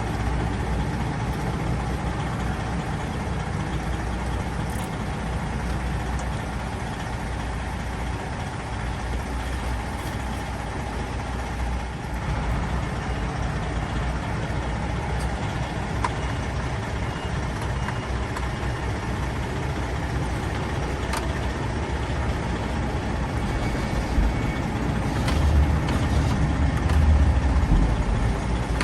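Steady low rumble of a truck engine idling, with a few faint clicks and knocks of parts being handled.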